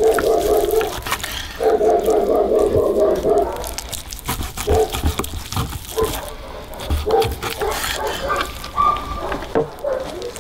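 A knife sawing through the crusty bark of smoked beef ribs on a wooden cutting board. Two long rasping strokes come in the first few seconds, then shorter cuts and knocks of the blade against the board.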